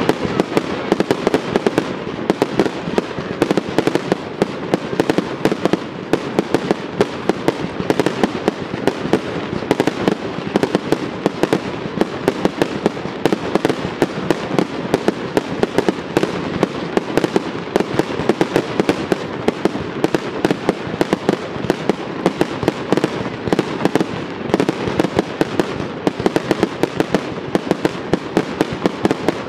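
Aerial fireworks display, with shell bursts banging in quick succession, several a second, without a break.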